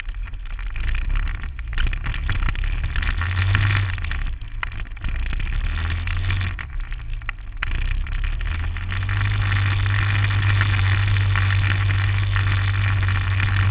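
Onboard sound of a radio-controlled car driving fast over a dirt trail: its motor running with noise and jolts over bumps in the first half. From about eight seconds in it settles into a steadier, louder run.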